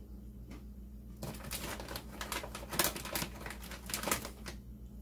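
Crunching of small pretzels being chewed, a rapid run of crisp crunches from about a second in until shortly before the end.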